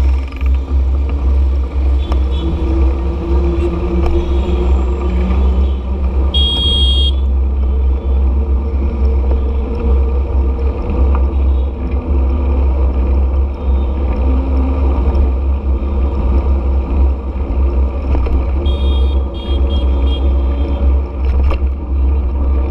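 Busy street traffic heard from a moving vehicle: a steady deep rumble with the noise of passing motorbikes and cars. A short high beep sounds about six and a half seconds in, and fainter ones come near the end.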